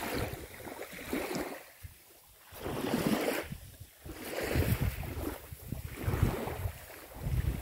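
Wind buffeting the microphone in gusts, with small river waves washing onto the sandy shore.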